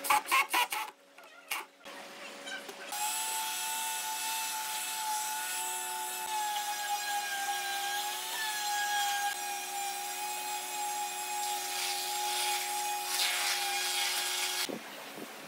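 A cordless impact driver hammers briefly, driving a screw into wood, in the first second. Then, from about three seconds in, an electric palm sander runs steadily on the wooden chair, its motor whine holding one pitch under the rasp of the sanding, and it cuts off about a second before the end.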